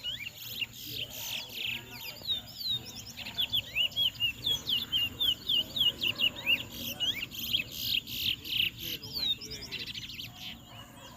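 Caged towa-towa finches singing in rapid, repeated chirping phrases, many short notes a second, busiest through the middle and thinning out near the end.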